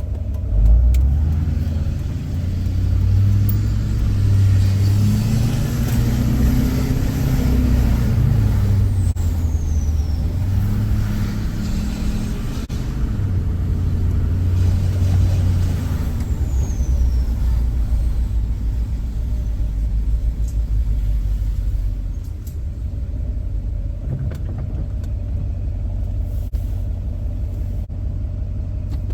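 2006 LBZ Duramax 6.6 L V8 turbo-diesel, on its stock intake with a PPE tune, pulling and cruising down a street. A deep engine rumble swells and eases with the throttle, and a faint high turbo whistle sweeps up and then falls away a couple of times in the first half.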